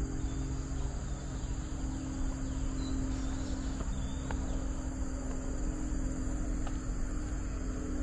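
Steady, high-pitched drone of forest insects, with a low rumble underneath and a few faint, brief bird chirps.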